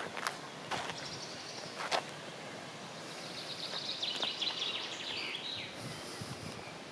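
A songbird singing a rapid trill of repeated high notes for about three seconds, dropping in pitch at the end. Three sharp clicks come in the first two seconds.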